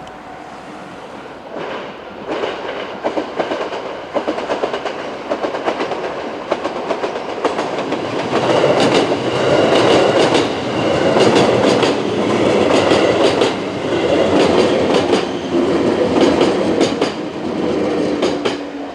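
JR West 221 series six-car electric train passing over a level crossing, its wheels clacking over the rail joints in quick clicks. It grows louder over the first few seconds, stays loud through the second half, and falls away sharply near the end.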